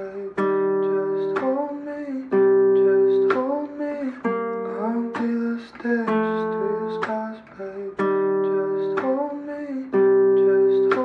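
Slow acoustic guitar music: strummed chords changing about once a second in a repeating progression, with a higher line bending in pitch over them.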